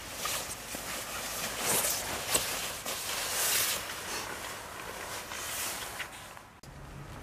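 Nylon shells of two down sleeping bags rustling and swishing in irregular bursts as they are handled and layered on top of each other. The rustling stops abruptly near the end, leaving a quieter, steady background.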